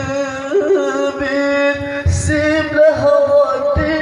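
A man singing a syair in praise of the Prophet Muhammad, drawing out long ornamented notes that he holds and bends without clear words.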